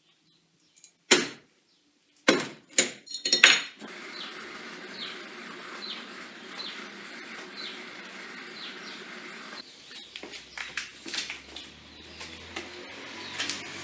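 Small steel workshop parts clanking and clinking as they are handled, several sharp knocks in the first few seconds. Then a steady hiss with a faint regular tick about twice a second, and scattered small clicks near the end.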